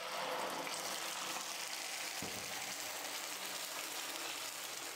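Tomato and chili paste sizzling steadily in hot oil with chopped garlic in a frying pan.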